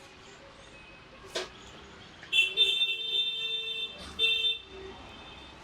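A vehicle horn honks twice: one long honk of under two seconds, then a short one. A single sharp click comes shortly before.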